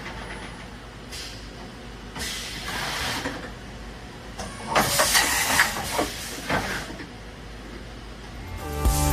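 Vertical machining center hissing in several short bursts, with sharp clicks and clunks between them; music comes in near the end.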